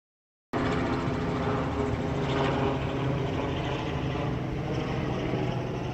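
Helicopter passing overhead: a steady engine and rotor drone that cuts in abruptly about half a second in and eases off slightly near the end.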